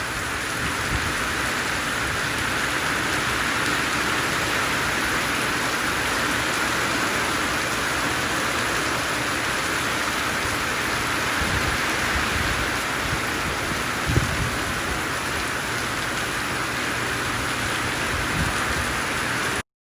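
Heavy rain pouring steadily in a cloudburst, with a few dull low thumps around the middle. It cuts off abruptly near the end.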